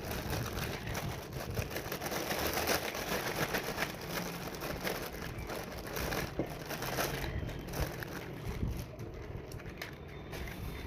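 Packaging crinkling and rustling as a toy is handled and unboxed, with many small crackles.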